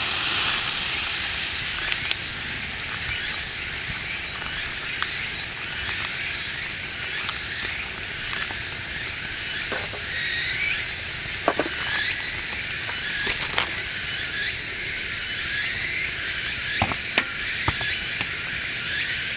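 Cicadas start up about halfway through into a steady, high, shrill buzz that grows louder, over a few light clicks.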